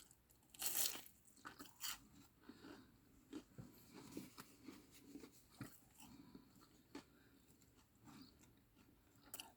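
Faint close-up chewing and crunching of a mouthful of stir-fried mixed vegetables, in small scattered bites and clicks, with one short louder noise about a second in.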